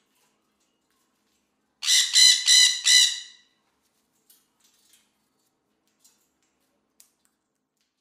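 Blue-and-gold macaw squawking: four harsh, loud calls in quick succession, then a few faint clicks.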